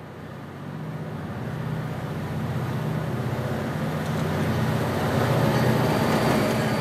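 A lashup of diesel-electric freight locomotives approaching and passing close by. Their engines run with a steady low hum that grows steadily louder, and wheel and rail noise builds as the lead units come alongside.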